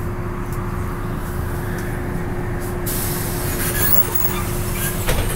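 LiAZ-6213.22 articulated city bus under way, heard from inside: a steady engine and road rumble with a constant droning tone. About three seconds in, a hiss starts suddenly, and a single knock sounds near the end.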